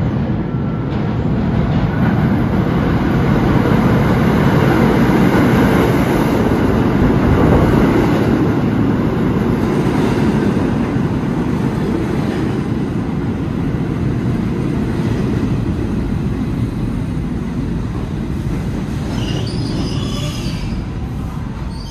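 An R68 subway train pulls into the station along the platform, a loud rolling rumble of wheels on rail that builds as the cars pass and then eases as the train slows. Near the end come high squeals as it brakes to a stop.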